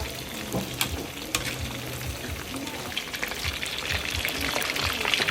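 Food frying in hot oil: a steady sizzle with many sharp crackling pops as the oil spatters, getting stronger towards the end.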